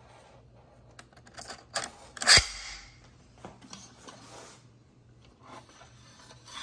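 Scattered clicks and knocks from handling the porch light fixture, with one loud sharp snap about two seconds in and lighter clicks after it.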